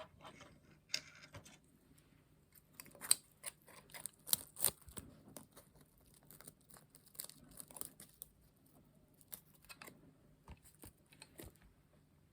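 Irregular, close-miked crackles, ticks and small tearing sounds from stationery being handled, the sharpest about three and four and a half seconds in.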